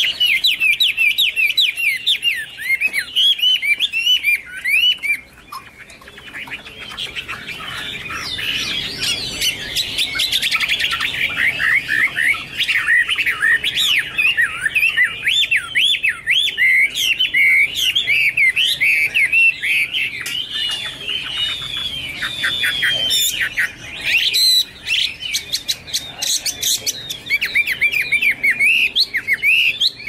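Chinese hwamei (melodious laughingthrush) singing: a long run of quick whistled notes sliding up and down in pitch, easing off briefly about five seconds in, then going on.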